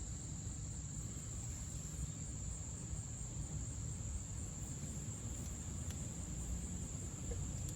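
Crickets trilling in one steady high-pitched note, over a low background rumble, with a few faint clicks near the end.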